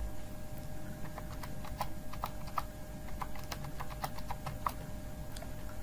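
Computer keyboard keys clicking in an irregular run as a phone number is typed digit by digit into a form field.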